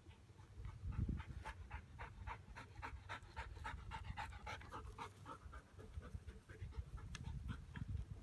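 Dog panting rapidly, about four breaths a second, with a low thump about a second in.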